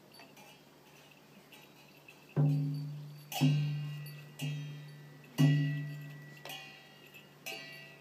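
Large Bhutanese handheld frame drum (nga) struck about once a second: six deep booms starting a little over two seconds in, each dying away slowly, the last two softer, with a metallic clash ringing on each beat. Before the drumming starts there are only faint light clinks.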